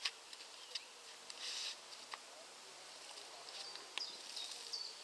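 Quiet outdoor ambience with a few faint clicks and a short high hiss about a second and a half in. Toward the end a bird calls in short, high, falling notes repeated about twice a second.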